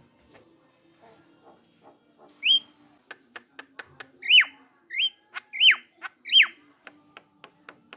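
Javan myna calling: loud whistled notes that sweep up and then drop steeply, five of them from a few seconds in, over a run of sharp rapid clicks.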